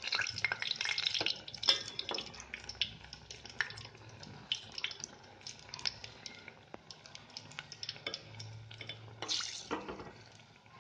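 Potato slices in gram-flour batter deep-frying in hot oil: a steady sizzle full of small pops and crackles, louder in the first couple of seconds, with a short louder burst of sizzling about nine seconds in.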